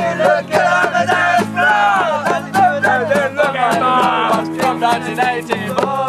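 Acoustic guitar strummed in a steady rhythm while several male voices sing along loudly.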